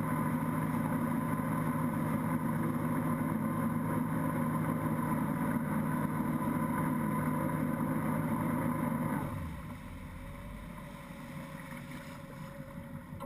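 Inboard engine of a Moomba XLV wake boat running steadily under way, with the wake churning behind it. About nine seconds in the engine is throttled back and the sound drops to a lower, quieter rumble.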